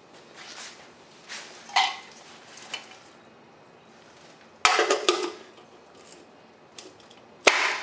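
Chrome wheel center cap being knocked into place on a steel Rally wheel: a few metallic clanks and knocks. The loudest come in a quick cluster about five seconds in and as one sharp hit near the end.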